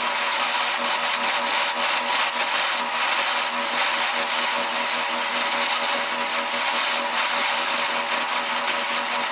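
Wood lathe running while a hand-held turning tool cuts into a spinning wooden blank: a steady scraping hiss over the machine's hum, dotted with many small clicks.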